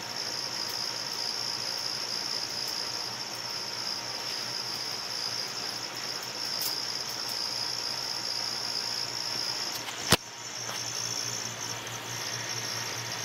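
A steady high-pitched whine over a low hum, with one sharp click about ten seconds in.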